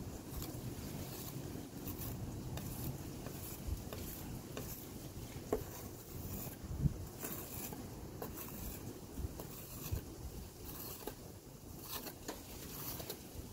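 Putty knife scraping and smoothing putty along a wooden door frame in repeated short strokes, over a low rumble of wind on the microphone.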